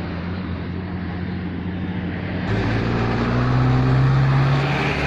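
A vehicle engine running steadily, growing louder about halfway through, with its pitch rising slightly as it revs up.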